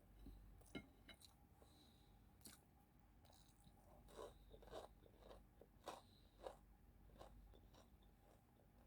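Faint chewing of a person eating, with scattered soft mouth clicks and a few louder ones in the middle.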